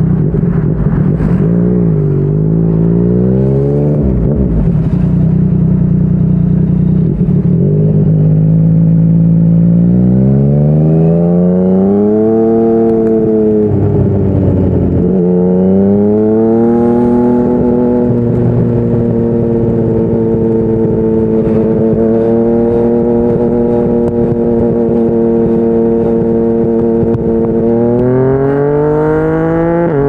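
Yamaha MT-09's inline three-cylinder engine through a Yoshimura R55 slip-on exhaust, under way. It climbs in pitch as it accelerates, drops briefly at a gear change about halfway, holds a steady cruising note for about ten seconds, then climbs again near the end.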